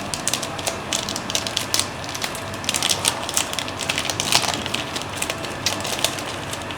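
Thin plastic protective film being peeled off and crumpled by hand, with irregular sharp crinkling crackles.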